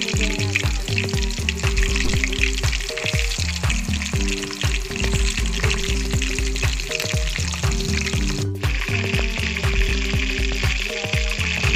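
Chicken leg quarters frying in hot oil in a pan, with a steady sizzle. Background music plays over it.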